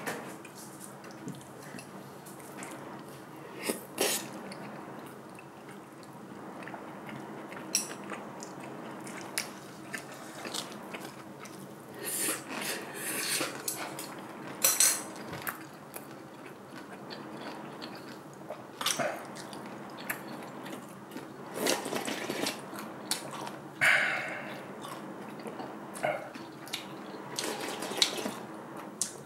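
Close-miked eating: chopsticks clicking against bowls and plates, chewing and wet mouth sounds, in short scattered bursts. Near the end comes sipping of soup from a bowl.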